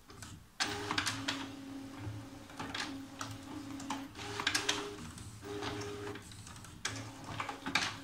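HP Photosmart 5520 inkjet printer running its start-up routine: the carriage and service-station motors whir in short runs that stop and restart, with clicks of gears and mechanism. It runs without the grinding that a service station with sheared rack teeth makes, a sign the repair has worked.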